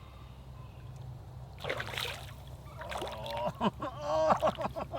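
Largemouth bass splashing at the water's surface as they feed: a sudden splash about two seconds in, then more splashing near the end, with voice-like sounds among it.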